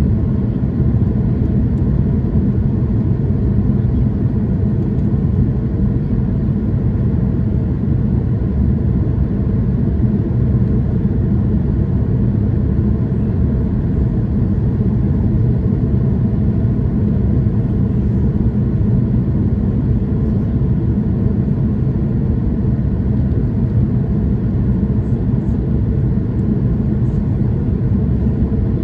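Steady low rumble of a jet airliner's cabin in flight, engine and airflow noise heard from a window seat over the wing, as the aircraft descends on approach.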